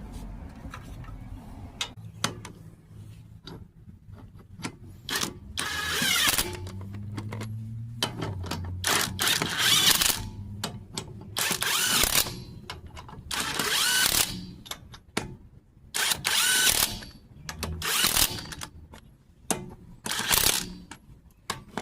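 Lug nuts being run onto the wheel studs with a power tool in a series of short bursts, about seven of them, after a few seconds of light metal clicks as the nuts are started.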